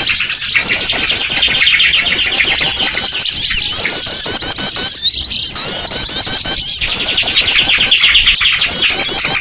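A loud, dense chorus of many small birds chirping and twittering at once in fast, overlapping high calls: a small-bird lure recording, played to draw small birds in.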